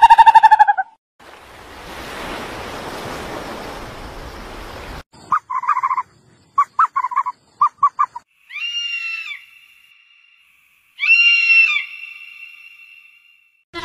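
A run of separate animal calls: a pitched call that stops just under a second in, about four seconds of hiss, a quick string of short chirps, then two longer harsh calls with a thin steady whistle-like tone between them.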